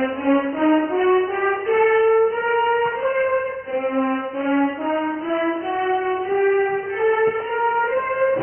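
Orchestral score music: a slow, sustained melody that climbs in held steps, twice over.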